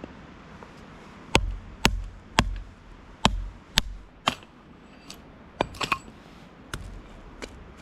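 Firewood being broken up into medium pieces for a campfire: six sharp cracks with a dull thump in quick succession, then a few lighter cracks near the end.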